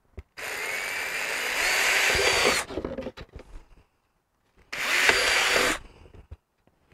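Craftsman 20V cordless drill boring through a thin plastic jug: one run of about two seconds, a few short spurts, a pause, then a second run of about a second.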